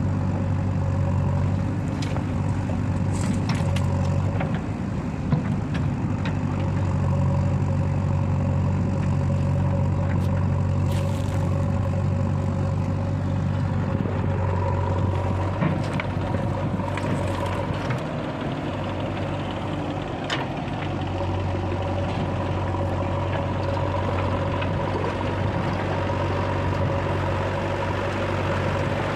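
Heavy diesel engine running steadily, its note dipping and recovering a couple of times as the load changes, with a few short, sharp knocks over it.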